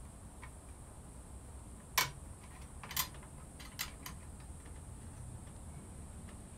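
A few sharp clicks and taps from a bolt and chainsaw casing parts being handled and fitted: one about two seconds in, another at three seconds, and two lighter ones just before four seconds.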